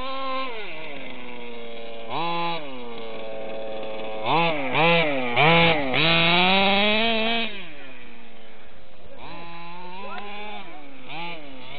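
HPI Baja 5B SS 1/5-scale RC buggy's two-stroke petrol engine revving in short bursts: a quick blip about two seconds in, three sharp revs then a longer held rev in the middle, and another rise and fall near the end, settling back to a steady lower note between.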